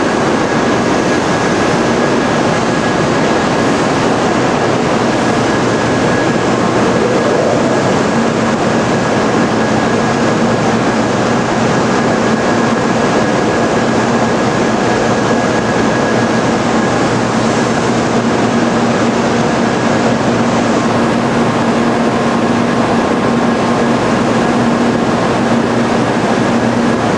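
A stationary N700 series Shinkansen standing at the platform, its on-board equipment running with a steady, even rush of noise. A faint high whine runs through it, and a lower hum comes in about eight seconds in.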